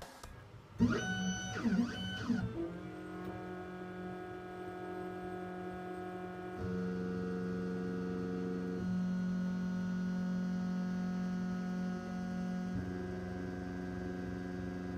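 K40 CO2 laser engraver cutting plywood: its head-drive motors give steady whining tones that shift pitch every few seconds as the head changes direction along the cut, over a steady low hum. It opens with about two seconds of louder rising and falling tones.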